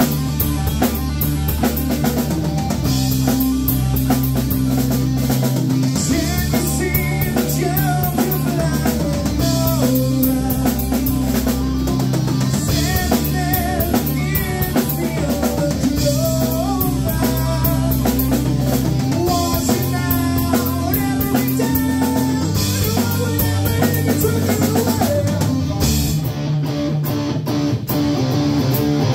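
Live rock band playing loudly: a Les Paul-style electric guitar, a bass guitar and a Tama drum kit, with held bass notes that change every few seconds under a busy drum beat and a wavering melodic line on top.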